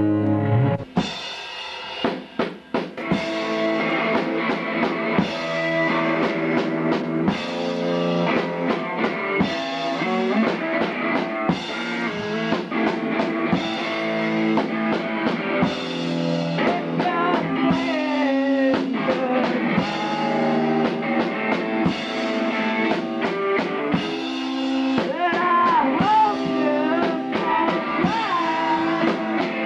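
Rock music: a drum kit and guitar come in about a second in, after held low notes cut off, and play on steadily.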